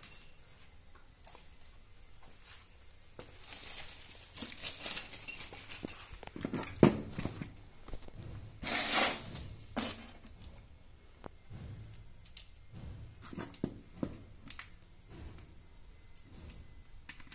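Handling noise from assembling a four-pole moulded-case circuit breaker: scattered rustles and crinkles with light plastic clicks and knocks, the longest rustle about halfway through.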